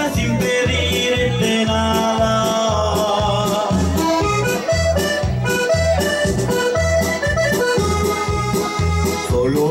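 Live Latin dance music from a one-man keyboard act: an accordion-like melody over a steady, evenly repeating bass beat of about two beats a second.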